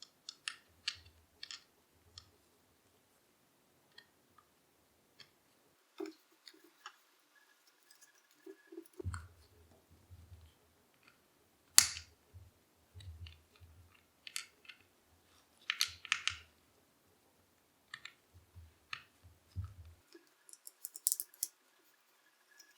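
Irregular small clicks, taps and brief scrapes of an Allen wrench and tiny screws being handled and driven into the cheek rest of a polymer shotgun stock, with one sharper click about halfway through.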